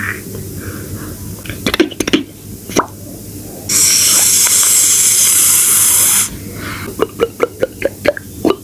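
Mouth-made foley effects: a few sharp clicks, then a loud spray-like hiss lasting about two and a half seconds, cutting off before a quick run of clicking knocks, about four to five a second.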